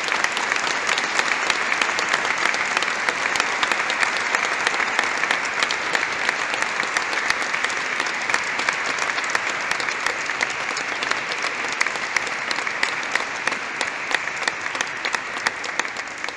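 Wedding guests applauding, a dense, steady clapping that eases off near the end.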